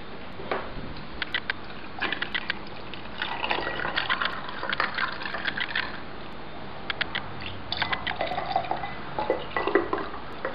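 Tea poured from a plastic pitcher into a glass of ice cubes: splashing liquid with sharp clicks, in two spells, the second starting about eight seconds in.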